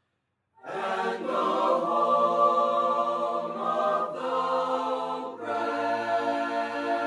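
Mixed-voice high-school choir singing a cappella. After a short silence the voices come in together on a held chord about half a second in, shift to new chords around four seconds and again around five and a half seconds, where a low bass part joins.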